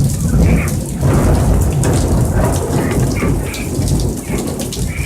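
Huge thunder rumbling through heavy rain pouring down, the deep rumble swelling and easing across the whole stretch.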